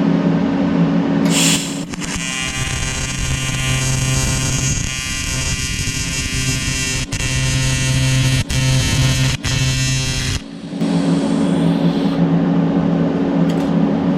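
Welding arc buzzing steadily for about eight seconds while a small bead is run on a cast aluminium foot peg, with a couple of brief breaks before it stops. A short hiss just before the arc, and the welding machine's steady hum before and after.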